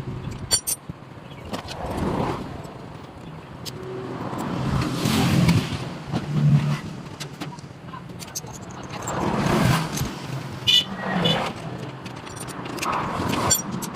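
Motor traffic passing several times, each vehicle swelling and fading over a couple of seconds, with a few light metallic clinks of small parts being handled.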